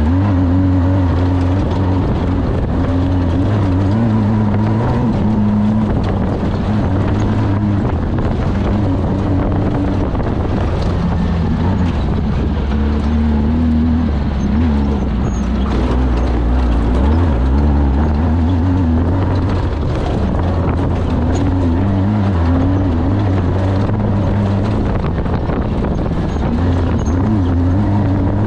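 Off-road race vehicle's engine running hard and continuously, its pitch wavering up and down with the throttle.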